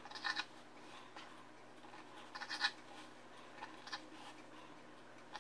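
Knife slicing through a rolled yufka pastry roll: a few faint, short scratchy cuts as the blade goes through the layers and meets the table, in bursts near the start, about halfway and again a little later.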